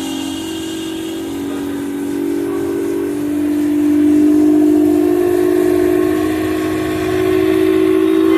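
Lloyd air conditioner making its faulty noise: a loud whistling hum at two close pitches that waver and drift, over a faint hiss, growing louder about four seconds in.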